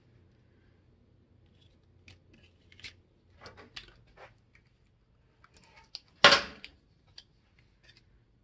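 Small clicks and scrapes of framing-nailer parts being handled, with one much louder sharp knock about six seconds in.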